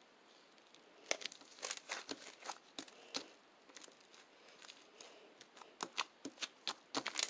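Irregular crinkling and crackling, many small sharp clicks close together, starting about a second in, as of something crinkly being handled close to the microphone.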